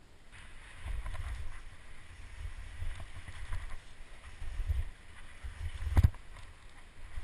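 Downhill mountain bike rolling over a snowy trail: a low, uneven rumble with scattered clicks, and a sharp knock about six seconds in.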